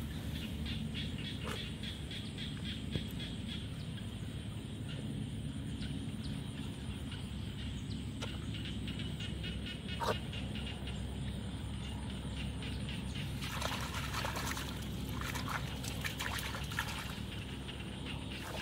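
Digging by hand and with a wooden stick in a wet mud bank: mud squelching and scraping with scattered small knocks, over a steady low outdoor rumble. The scraping and rustling gets busier for a few seconds past the middle.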